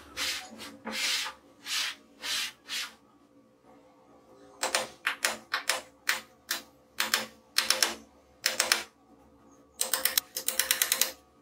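Hammer tapping a steel centre punch into a laminated board: sharp light taps in small clusters, then a fast run of rapid taps near the end. A few short scraping strokes come before the taps.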